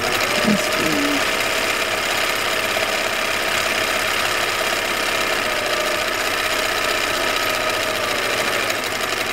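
Bernina 930 electronic sewing machine stitching continuously, a fast, even clatter of the needle and feed over a steady motor whine.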